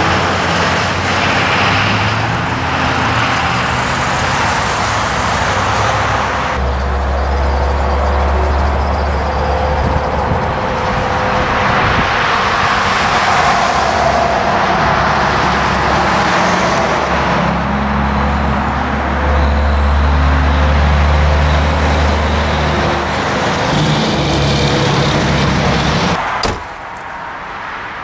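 Road traffic: cars and pickup trucks driving past, a loud continuous noise with a deep rumble that swells twice.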